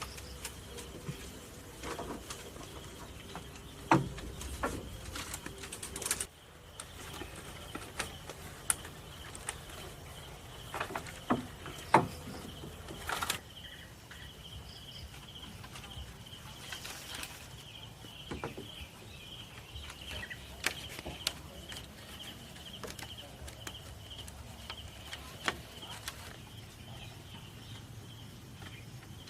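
A steady high insect drone, with scattered sharp knocks and clacks of hand work with wood or sticks, several of them close together about four, six and twelve seconds in.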